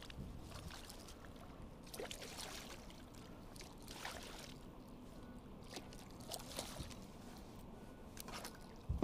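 A hooked bass thrashing at the water's surface beside a kayak: short, irregular splashes every second or two.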